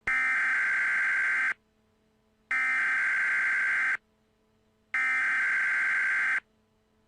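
Emergency Alert System SAME header: three identical bursts of shrill, buzzy digital data tones, each about a second and a half long with a second's gap between them. They mark the start of an emergency alert.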